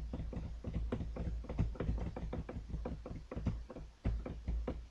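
Rapid, irregular clicking and tapping, several clicks a second, over a low rumble, while the presentation slides are being flicked through. It cuts off abruptly at the end.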